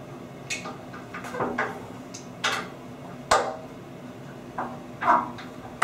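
Allen key tightening the screw on a stainless steel sliding-door roller wheel: about seven sharp metallic clicks and taps, each ringing briefly, the loudest a little past halfway.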